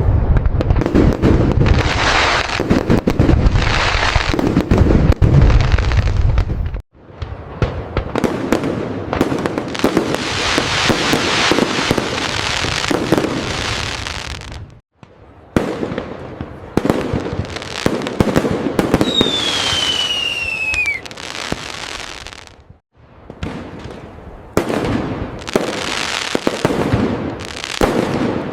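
Fireworks display: dense crackling aerial bursts with deeper booms, in stretches about eight seconds long that each cut off suddenly and start again. A whistle falling in pitch rises above the crackle about two-thirds of the way through.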